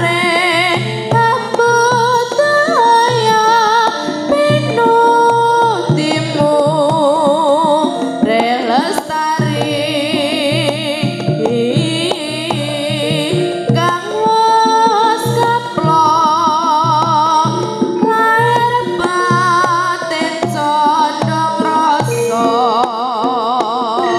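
Background music: a wavering, vibrato-laden melody line over a steady hand-drum beat.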